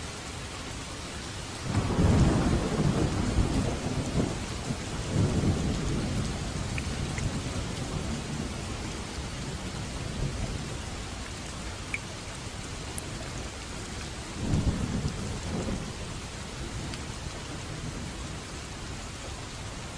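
Steady rain falling, with rolls of thunder: a loud rumble about two seconds in that rolls on for several seconds, and another shorter rumble about two thirds of the way through.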